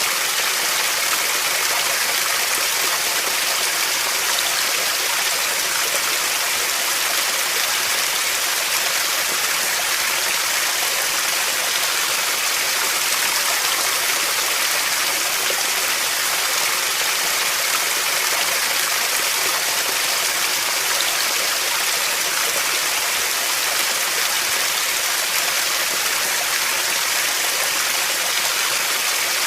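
Running water flowing steadily: an even, hissy wash of water noise that stays the same throughout.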